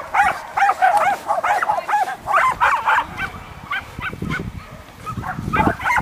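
A dog barking in a quick, excited string of high yaps, about three a second, the barks growing fainter and sparser about halfway through.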